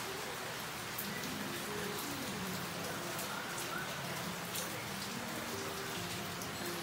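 Steady rain falling, an even hiss with heavy drops ticking sharply close by every so often.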